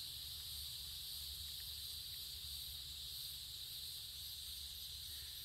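Insect chorus: a steady, high-pitched hiss and buzz.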